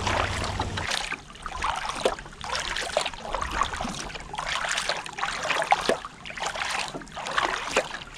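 Sea kayak paddling: paddle blades dipping and splashing in a steady rhythm of about one stroke a second, with water rushing and lapping along the hull.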